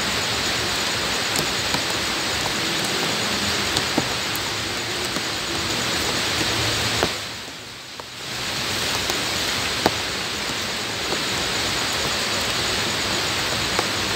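Steady rain falling on wet ground, with single drops splashing here and there. The sound drops away for about a second near the middle, then returns.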